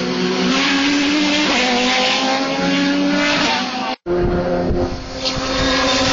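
Engines of several race cars running at speed on the circuit at once, their pitches slowly rising as they accelerate. The sound cuts out abruptly about four seconds in, then another race car's engine is heard as it comes toward the listener.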